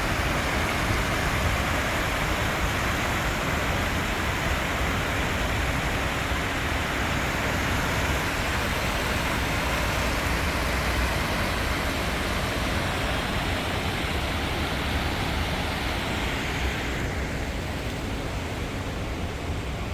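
Steady rushing of river water pouring over a small dam's cascades. The higher hiss of it fades somewhat near the end.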